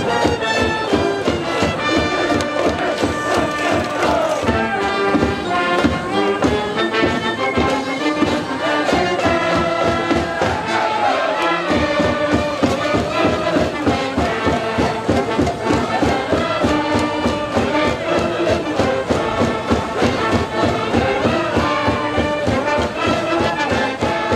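High-school brass band playing a cheer tune in the stands, trumpets and trombones over a steady drum beat, with the cheering section's voices joining in.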